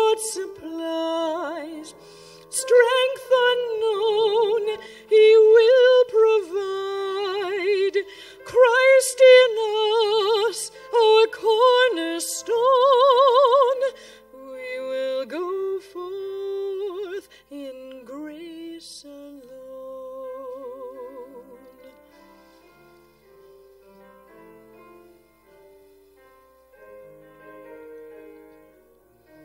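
A woman singing solo with a strong vibrato. The singing is loud for about the first half, then continues in softer, lower notes that fade toward the end.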